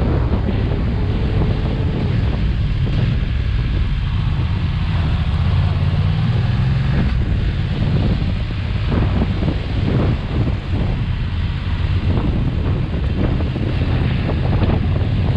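Wind buffeting the microphone on a moving BMW F900XR motorcycle, with the bike's parallel-twin engine droning low and steady underneath.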